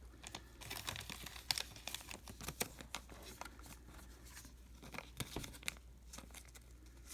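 Baseball cards being handled and flipped through: faint, irregular clicks, scrapes and crinkles of card stock.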